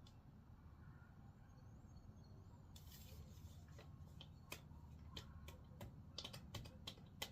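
Faint, irregular light clicking taps, starting about three seconds in and coming more often near the end.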